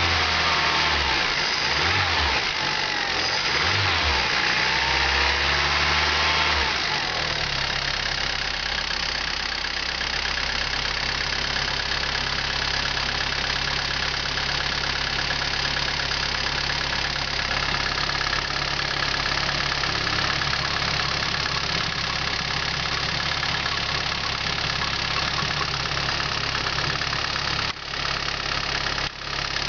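VW Polo 86C 1.3-litre four-cylinder petrol engine with a rattle, blipped up and down several times in the first seven seconds and then settling to a steady idle. The rattle is typical of this engine when cold; the owner suspects the hydraulic lifters or the pistons.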